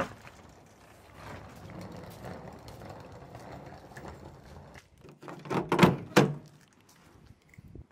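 Suitcase wheels rolling over a paved driveway for a few seconds. Then, about five to six seconds in, a quick run of clicks and clunks as a Ford pickup's outside door handle is pulled and the latch releases.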